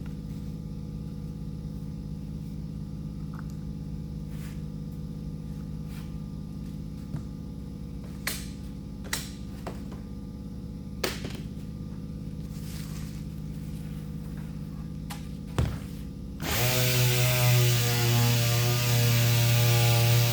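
Low steady hum with a few light knocks and clicks, then near the end an electric sander switches on, spins up with a briefly rising whine and runs loud and steady.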